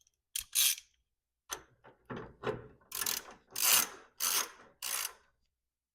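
Hand ratchet clicking in a series of short strokes, about nine swings, tightening the nuts on a control arm's mounting bolts.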